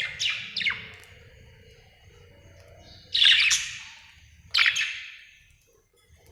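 Budgerigar chirping: a quick run of three falling chirps, then two louder, harsher calls about three and four and a half seconds in.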